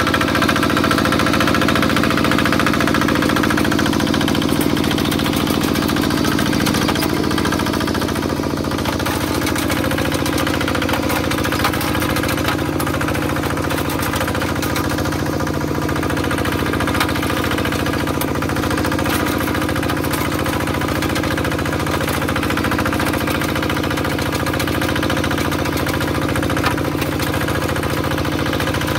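Kubota single-cylinder diesel engine of a Quick G1000 two-wheel walking tractor running steadily as the tractor pulls a plough through the soil.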